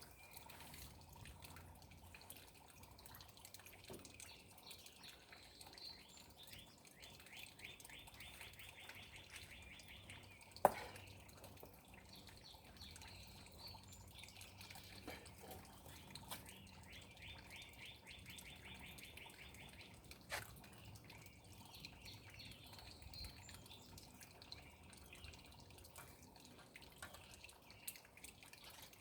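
Faint birdsong: a songbird's rapid trill, heard twice, with scattered chirps, and a sharp tap about ten seconds in and another about twenty seconds in.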